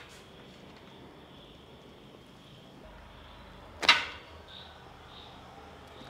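One sharp knock about four seconds in, over quiet room tone.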